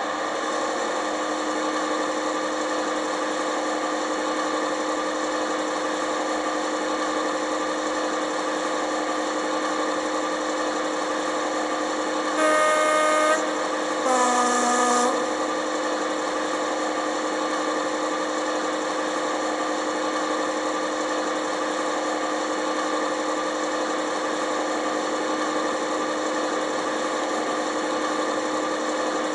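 A sound-decoder model of a Class 55 Deltic's Napier Deltic engine idling steadily, played through the small speaker of an OO gauge model locomotive. About halfway through, two horn blasts sound, a higher note and then a lower one.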